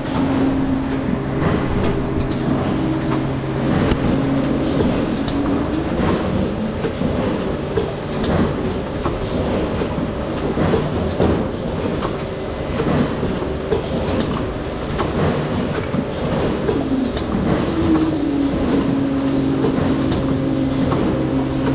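Rotary dairy cup filling and sealing machine running: a dense clatter of clicks and knocks from its mechanism over a steady machine hum. The hum fades a few seconds in and comes back, rising in pitch, a few seconds before the end.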